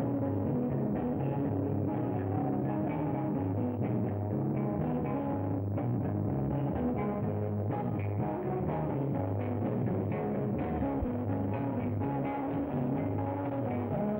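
Rock band jamming: electric guitar and bass over drums, with a repeating low bass figure and a steady beat.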